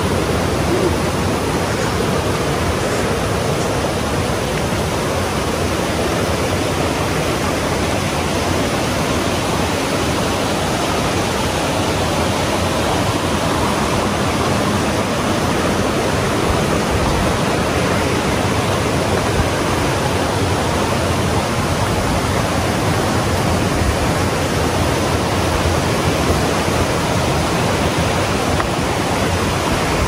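Rushing water, loud, steady and even, with no change over the whole stretch.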